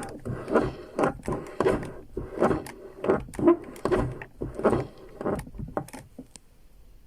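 Lada Vesta car door being swung back and forth over and over, its hinge and door check creaking and clunking at every swing, about twice a second. The door is being worked to test the freshly flushed and lubricated mechanism, which still creaks.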